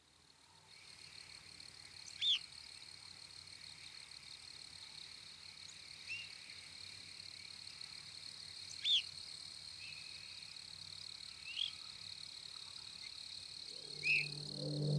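Night-time outdoor ambience fading in: a steady high chorus of crickets or other insects, with short, sharp bird chirps every two to three seconds. Low, sustained music tones begin to swell near the end.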